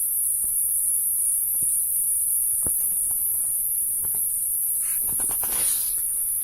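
Steady, high-pitched chorus of forest insects. A few faint clicks are heard through it, and there is a short rustle about five seconds in.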